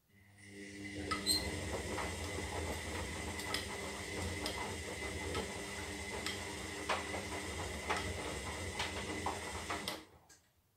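Zanussi Lindo 300 washing machine's motor turning the drum during the wash phase: a steady hum that builds up over about a second, with irregular clicks and knocks from the load, and stops after about ten seconds.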